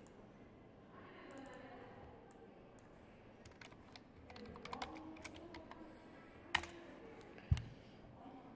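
Typing on a computer keyboard: a scattered run of soft key presses, busiest in the middle, with a sharper click near the end and a low thump just after it.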